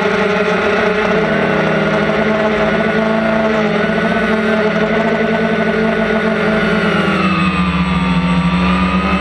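DJI Phantom quadcopter's motors and propellers whining steadily, heard from the GoPro mounted on the drone. Its several pitches shift together about seven seconds in as the motor speeds change.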